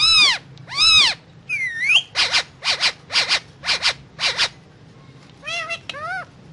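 Indian ringneck parrot calling: two rising-and-falling calls, a twisting glide, then a run of six short harsh squawks about two a second, and two more rising-and-falling calls near the end.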